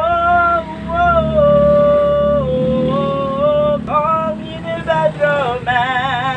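A man singing long held notes in a high voice, sliding from pitch to pitch, with a quick wobbling vibrato near the end.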